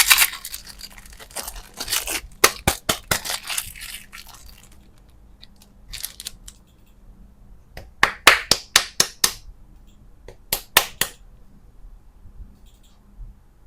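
Runs of sharp crackling snaps and clicks, several to a second, from candy and its packaging being handled, cracked open or cut. There are three bursts, with quiet pauses between them.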